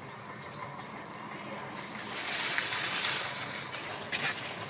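Dry leaves rustling and crackling as they are handled and pushed into a clay stove for kindling, swelling about two seconds in, with sharp crackles near the end. A few short bird chirps.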